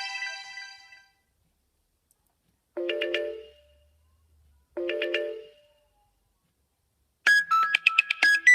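Nokia X2-00 mobile phone playing Nokia X3-00 ringtones through its loudspeaker. A synthesized tone fades out, then a short tone sounds twice, about two seconds apart. About seven seconds in, a new ringtone of quick notes begins.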